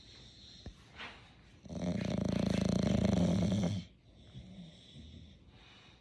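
Bulldog snoring: one long, loud fluttering snore starting a little under two seconds in and lasting about two seconds, with quieter breathing before and after it.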